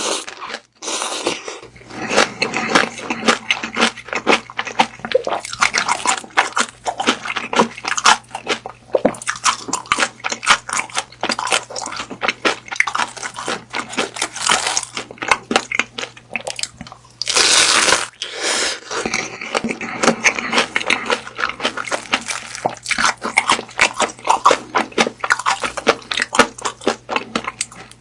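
Chewing and biting of grilled beef sausage: a dense, continuous run of sharp mouth clicks and smacks, with a louder noisy stretch of about a second roughly two-thirds of the way through.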